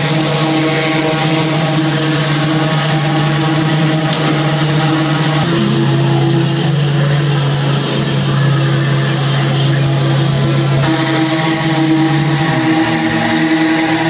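Engines of large robotic show machines running with a loud, steady drone. The pitch drops a little about five seconds in and comes back up about eleven seconds in.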